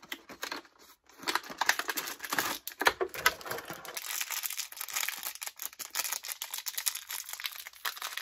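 Clear plastic toy packaging crinkling and crackling as it is handled and pulled open, starting about a second in and busiest in the first few seconds.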